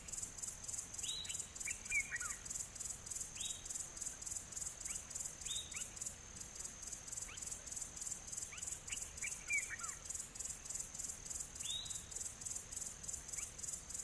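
A steady, high-pitched insect chorus pulsing several times a second, with a bird giving short, down-slurred whistled calls every second or two, some in quick runs of two or three.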